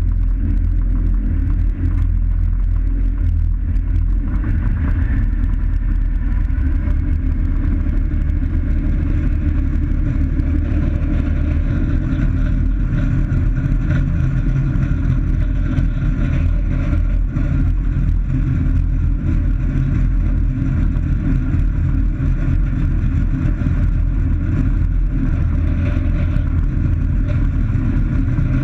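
Small experimental plane's piston engine and propeller running steadily at low taxi power, heard from inside the closed cockpit as a loud, even drone.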